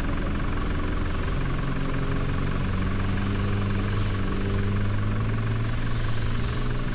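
Vehicle engine running steadily, with a constant hum of noise over it.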